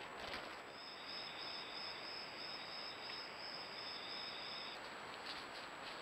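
An insect trills steadily in a high, pulsing tone for about four seconds and stops about a second before the end, over a steady background hiss. A few light rustles or clicks come near the end.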